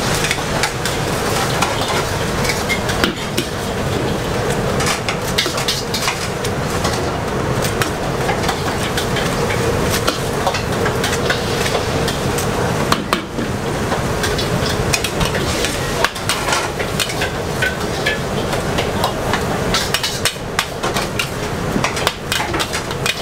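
Noodles and bean sprouts sizzling in a large wok over a gas flame, with frequent sharp clanks and scrapes of a metal spatula against the wok as they are stirred.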